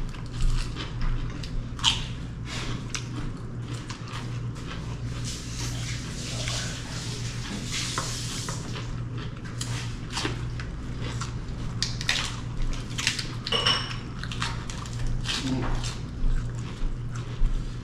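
Sounds of eating a meal: scattered small clicks and clinks of plates and utensils over a steady low hum.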